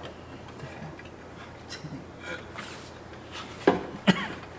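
Faint clicks and scrapes of a hand tool and metal parts as a replacement car horn is bolted onto its mounting bracket, with two sharper knocks near the end.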